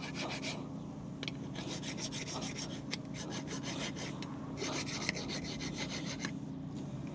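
Hand file rasping back and forth in quick strokes on a rusty brake caliper bracket. It comes in three bouts with short pauses, as the file scrapes rust and debris out of the pad abutment slots so the new pads can sit and slide freely.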